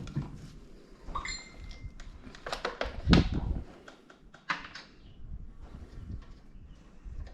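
Clinks and knocks of hand tools and metal parts being handled. About a second in there is a short metallic ring, and about three seconds in a heavier thump.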